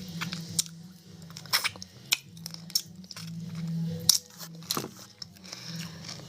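Close-up crunchy chewing and biting, a few sharp crunches about a second apart, over a low steady hum.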